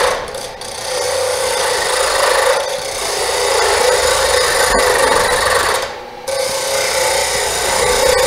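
Wood lathe spinning a wooden duck-call blank while a handheld turning tool cuts it, a steady scraping of steel shaving wood. The cut stops briefly twice, about half a second in and again around six seconds in.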